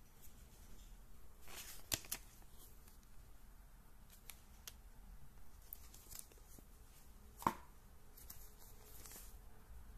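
Pages of a small paper user manual being turned and handled: soft rustling and a few light clicks, with a sharper knock about seven and a half seconds in.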